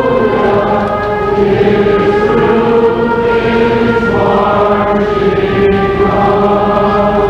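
Choir singing slow liturgical music in long held notes, moving to a new chord about four seconds in.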